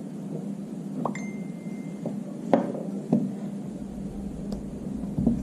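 A few light clinks and knocks of small hard objects being handled, one of them ringing clearly for about a second, over a steady low hum.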